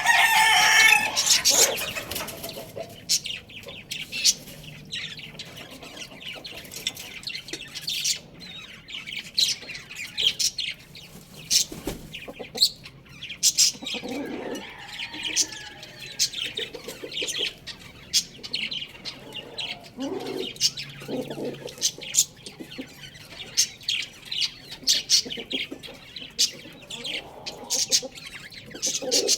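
Chickens: a loud pitched call in the first two seconds, the tail of a rooster's crow, then a few lower clucking calls in the middle and many short sharp chirps throughout.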